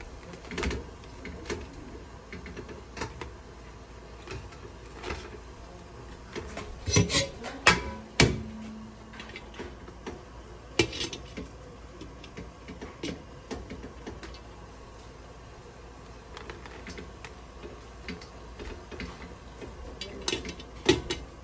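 Hard king crab leg shells knocking and scraping against a stainless steel steamer pot as the legs are packed in, with a glass pot lid clinking on the rim. The knocks come scattered, the loudest in a cluster about seven to eight seconds in with a short ring after it, and a few more clinks near the end, over a low steady hum.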